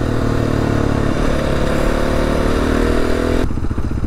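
Adventure motorcycle engine running steadily under throttle, with riding noise over it. A little past three seconds in the throttle closes and the engine falls back to a lower, pulsing note.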